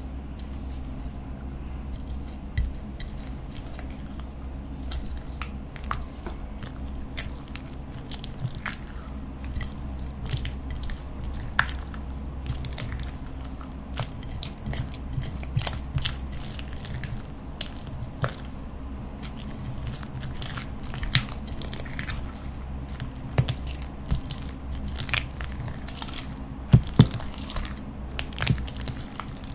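Clear slime full of star-shaped glitter being stirred and pulled with a metal spatula in a clear container, giving irregular sticky crackles and clicks. A few louder pops come near the end, over a steady low hum.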